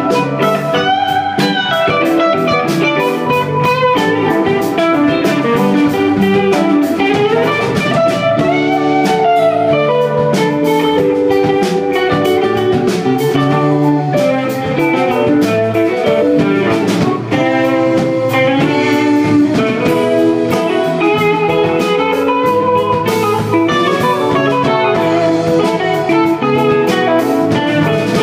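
Live rock band playing an instrumental passage: electric guitars carry a melodic line over keyboard, bass guitar and a drum kit.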